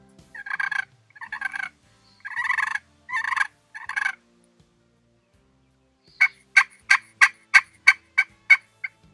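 Friction pot turkey call worked with a wooden striker, making hen yelps to call in turkeys. First come five raspy, drawn-out notes, then, after a short pause, a quick run of about nine short, sharp yelps at roughly three a second.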